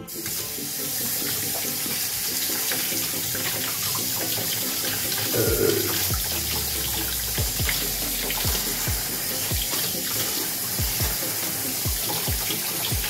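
Kitchen tap running steadily into a stainless steel sink, the water splashing over a quail carcass as it is rinsed and rubbed by hand.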